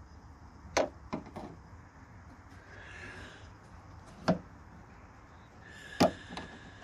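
Flat-head screwdriver clicking against the metal latch and plastic rod clip inside a Mitsubishi L200's tailgate. There is a quick run of three clicks near the start, a single click about four seconds in, and a louder pair near the end.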